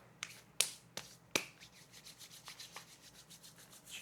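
Hands being sanitized: four sharp clicks in the first second and a half, then fainter, quicker ticking and rubbing.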